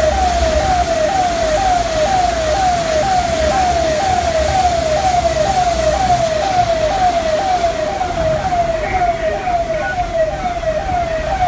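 Civil defence emergency vehicle's electronic siren sounding a fast repeating cycle, each note sweeping down in pitch, about two a second, with a low rumble underneath during the first half.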